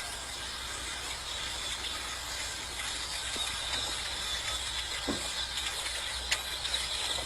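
A large flock of birds chattering and calling all at once, a dense steady din of many small chirps, with one sharp click about six seconds in.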